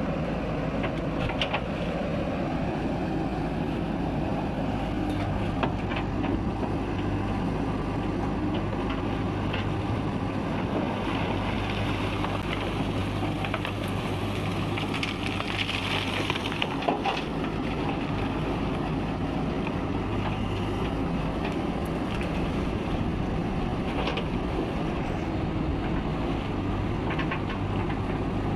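Diesel engine of a JCB backhoe loader running steadily, with a few short clanks through it.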